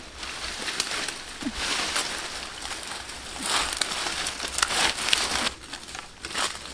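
Dry grass and leaf litter rustling and crackling as hands rake and push through it, in several surges, with the odd sharp twig snap.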